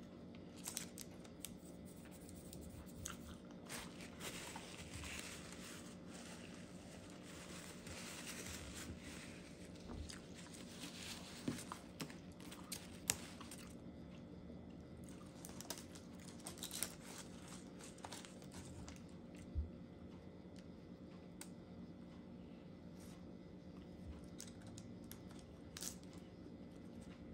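Faint rustling and crinkling of a paper sandwich wrapper being handled, with scattered small taps and clicks as food is picked off it.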